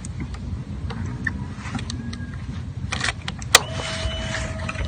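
Honda CRF150L's air-cooled single-cylinder four-stroke engine running, a steady low rumble, with scattered clicks and one sharp click about three and a half seconds in, followed by a faint steady high tone.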